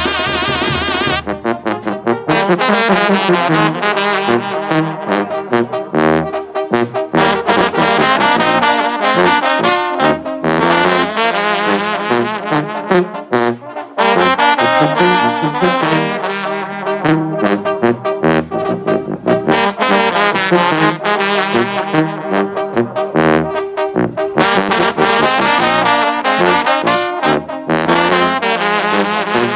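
Mexican banda playing a lively piece, with trombones and trumpets carrying the melody over a steady beat.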